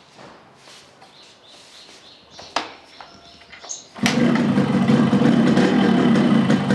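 An engine starts up abruptly about four seconds in and runs loudly and steadily, then dies away near the end. Before it, birds chirp faintly and there is a single sharp click.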